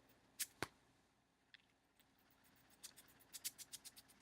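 A hedgehog with the sniffles sneezing once, a short, sharp, high-pitched puff about half a second in, followed at once by a light knock. From about three seconds in, a run of faint quick ticks, several a second.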